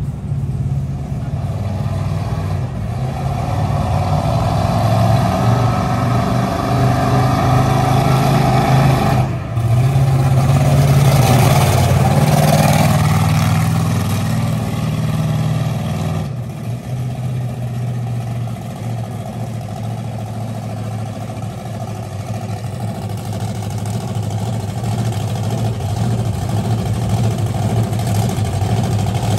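Monster truck engine revving hard as the truck drives and turns on asphalt. It builds to its loudest about ten to thirteen seconds in, eases back, then builds again near the end.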